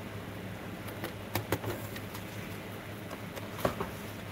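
A steady low hum with a few short knocks and clicks from handling a foiled sea-glass piece on a metal tray: two close together about a second and a half in, and another near the end as the piece is set down on the tray.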